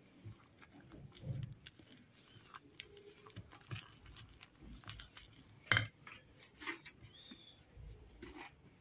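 Wire whisk stirring egg and sugar into flour in a bowl: faint soft scraping with scattered light clicks of the whisk against the bowl, and one sharper clink a little before six seconds in.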